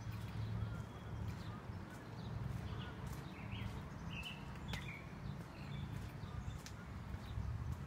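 Footsteps of a person walking on a concrete path at a steady pace, with a few short bird chirps and a steady low rumble underneath.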